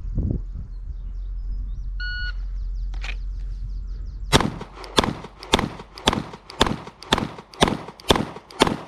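A shot timer beeps once about two seconds in. About two seconds later a Glock 17 Gen 5 9mm pistol starts firing: nine shots in a steady rhythm, about two a second.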